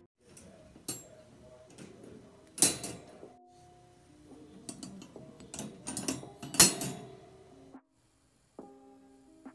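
Metal wire pet crate door and its sliding bolt latch being handled: clicks and rattles of wire on wire, with two loud sharp clanks about two and a half and six and a half seconds in. Soft music with held notes plays faintly underneath.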